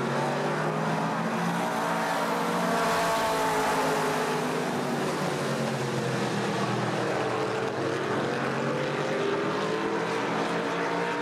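Late model stock cars' V8 engines running at racing speed as the pack laps the track: a steady blend of several engine notes that rise and fall slightly as the cars pass.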